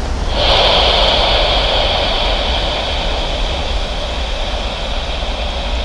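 Airbus A320-232's IAE V2500 turbofan engines at high thrust on the takeoff roll: a continuous jet roar with a steady high whine, easing off slightly as the aircraft moves on.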